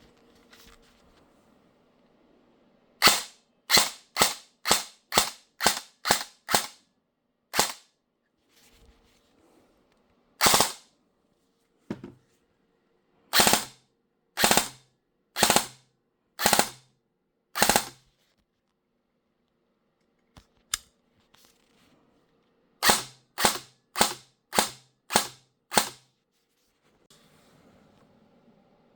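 E&C M4 airsoft electric gun with shimmed stock gears on an 11.1 V battery, fired in single shots. There are about two dozen sharp shots, some in quick runs of about two a second and others a second or more apart.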